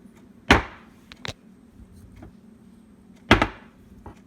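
Filled glass jam jars with screw-on lids being turned upright and set down on a counter: two sharp knocks about three seconds apart, with a lighter click just after the first.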